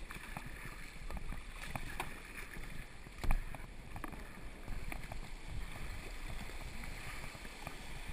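Whitewater rushing and splashing around a kayak running a rapid, with paddle strokes splashing in the current. One sharp, much louder knock a little over three seconds in.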